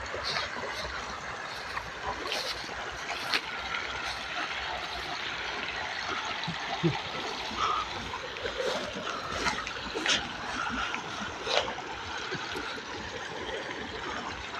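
Shallow river water trickling and splashing around a person wading, with a few sharp clicks scattered through.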